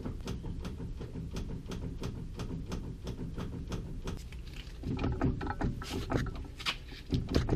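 Worn steering linkage on a Chevrolet C1500, with its ball joints and tie rods clicking and knocking as it is rocked back and forth by hand. The joints are loose, with play in them.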